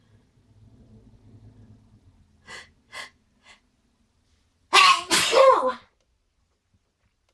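A person's sneeze with its buildup: three short, sharp intakes of breath about half a second apart, then one loud two-part sneeze.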